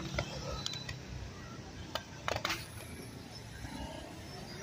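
Street traffic with motorcycles passing over a steady low engine rumble. A few sharp clicks come near the start, and a brief clatter about two seconds in.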